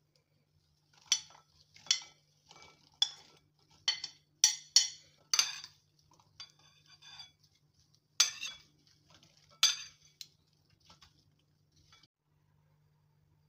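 Metal spoons clinking and scraping against a ceramic bowl as cut okra is tossed in a spice mix: a run of sharp clinks about once or twice a second, bunched together around four to five seconds in, then two more later and softer scraping toward the end.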